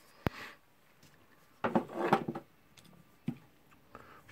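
Small parts handled during hand assembly: a sharp click a quarter second in, then a cluster of light clicks and rubbing scrapes about halfway through and one more click near the end.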